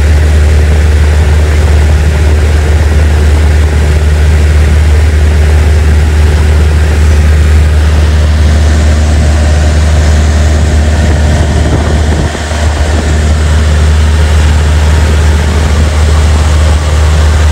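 Cessna 172's piston engine and propeller running steadily in cruise flight, heard from inside the cockpit as a loud, even, low drone.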